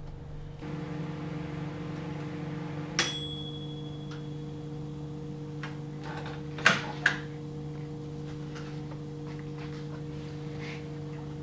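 Dial-timer microwave oven: its bell dings once about three seconds in, over a steady low hum. About three and a half seconds later come two sharp clacks, the door release being pressed and the door opening.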